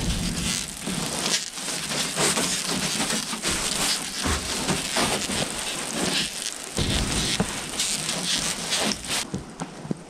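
Freezing rain falling steadily, with a long-handled brush scraping snow and slush off a greenhouse's plastic roof panels in irregular strokes.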